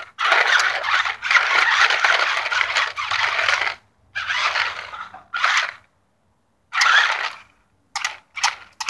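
Remote-control toy car's electric drive motor and gears whirring in bursts as the car is made to dance back and forth: one long run of about three and a half seconds, two shorter runs, then a quick string of brief bursts near the end.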